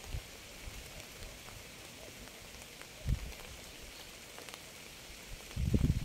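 Steady rain falling, an even hiss with a few soft low thuds, the clearest about three seconds in. Near the end a loud, uneven low rumble sets in over the rain.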